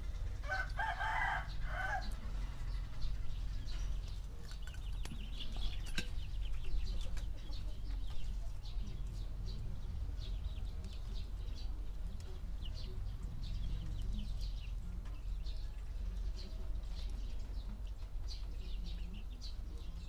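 A rooster crows once near the start, a pitched call about a second and a half long. Faint short high chirps of small birds keep on after it over a steady low background rumble.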